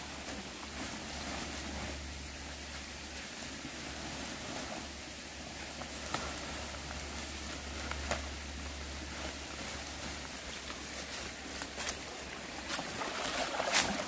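Steady rush of a small mountain stream, with scattered crackles and rustles of dry leaves and plastic sheeting being pulled up and stuffed into a bag, growing busier near the end.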